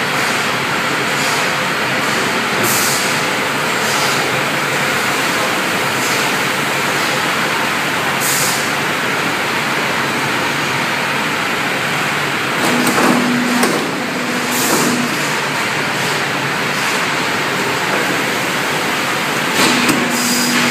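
Roller-type veneer dryer running: a loud, steady mechanical rush. Short hissing bursts come every few seconds, and a low steady tone sounds twice for a second or two in the second half.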